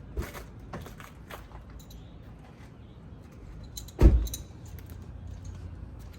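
Scattered light clicks and clinks over a low steady hum, with one loud, deep thump about four seconds in.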